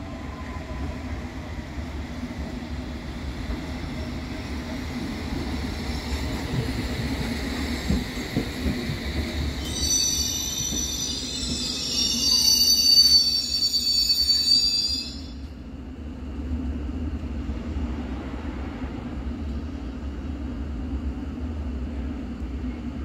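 London Underground S Stock electric train running into a platform and braking to a stop. A faint falling whine and rumble as it slows, then a loud cluster of high-pitched squeals from about ten to fifteen seconds in as it halts. After that, a steady low hum as it stands.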